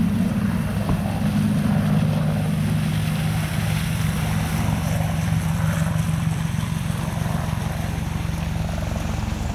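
AH-64 Apache attack helicopter flying overhead on approach: a steady, low, pulsing beat from its four-blade main rotor over a continuous engine and rotor noise.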